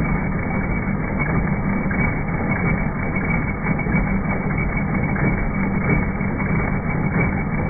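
Bestsew B-3620 15-needle embroidery machine stitching, giving a steady, low mechanical running noise.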